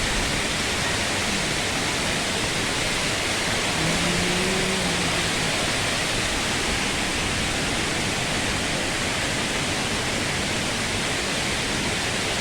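Waterfall with heavy, forceful flow, a steady rushing of falling water.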